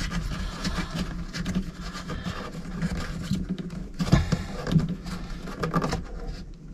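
Handling noise of cable plugs being worked into the back of a Garmin fish finder mount: irregular small plastic clicks, knocks and scrapes, over a low steady hum.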